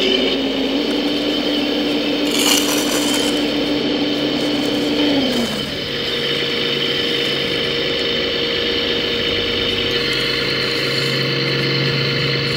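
Electric hydraulic pumps and motors of 1:14 scale RC construction models whining steadily, the pitch dropping about halfway through as the load changes. There is a short sharp noise about two and a half seconds in.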